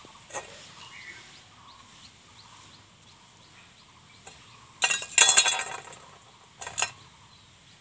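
Stainless steel bowl clattering and scraping on concrete as a kitten pushes its head into it: a loud metallic rattle of about a second, a little under five seconds in, and a shorter one near the end.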